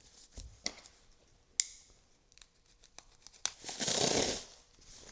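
Watch packaging being handled: a few light clicks and a sharp snap about one and a half seconds in, then a short, loud rustle of paper wrapping being torn or pulled open about four seconds in.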